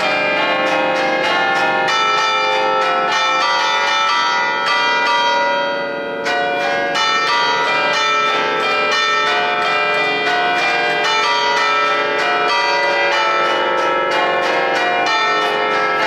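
Church bells of a ten-bell Cavadini peal in B-flat (1950), struck in quick succession in an allegrezza tune played from an electric keyboard, the bells hanging still. The strikes overlap into continuous ringing, with a short lull about six seconds in.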